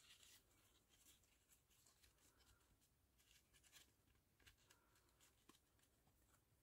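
Near silence, with faint scratchy rustles of grosgrain ribbon and thread being handled as thread is wrapped round the cinched centre of a ribbon bow.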